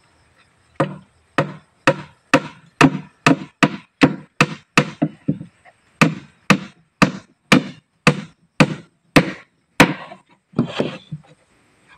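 Hammer driving nails into a plywood box, a steady run of sharp blows a little over two a second, with a short pause about five seconds in.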